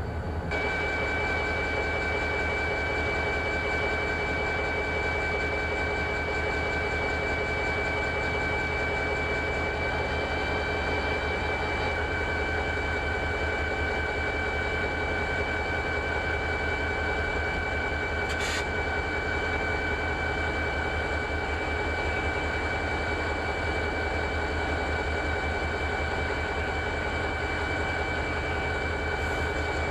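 Diesel freight locomotives running: a steady low engine rumble with several steady high whines held unchanged over it, cut off suddenly near the end.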